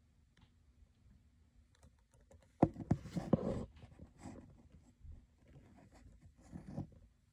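A sharp click about two and a half seconds in, followed by a second of small knocks and rustling, then a few fainter scattered taps: close handling sounds.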